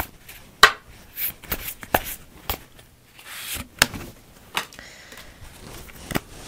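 A tarot deck being shuffled by hand: a run of sharp, irregular card snaps and a brief riffle, with a card drawn and laid down on the spread.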